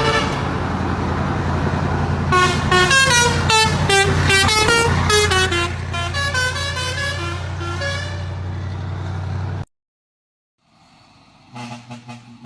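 Long 4-foot vehicle air horns sounding a steady chord over a low engine drone, then playing a quick tune of changing notes for several seconds. The sound cuts off abruptly about nine and a half seconds in, and another horn chord starts near the end.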